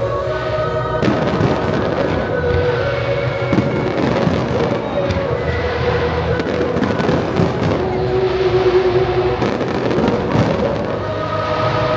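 Fireworks bursting again and again, irregular bangs and crackles over the display's synchronised music soundtrack.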